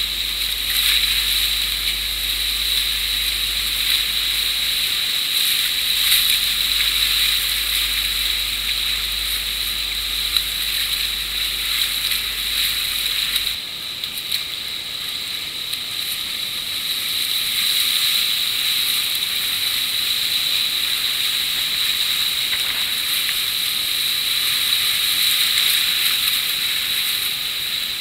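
Whitewater rapids rushing and splashing around a kayak, a steady loud hiss of turbulent river water, with a short dip in level about halfway through.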